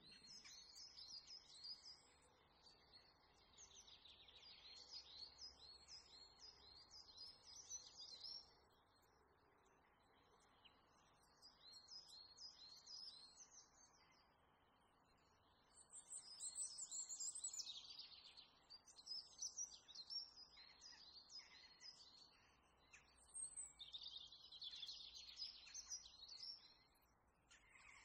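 Small birds chirping and twittering faintly in quick repeated phrases, in several bouts with short pauses between them.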